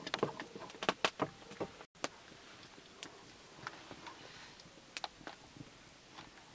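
A wooden spatula clacking and scraping against a metal wok as it stirs, a quick run of knocks; after a brief break, a wood fire crackling faintly with scattered ticks and pops.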